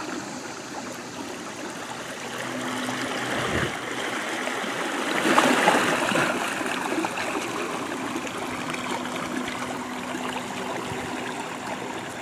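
Lake water rushing and splashing as the plastic-barrel boat pushes through it and its wake, loudest about five to six seconds in when it passes closest.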